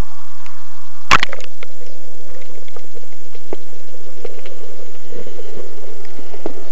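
Water splashing over an action camera as it dips below the surface about a second in, then the muffled underwater rush heard through the camera, with scattered crackling clicks.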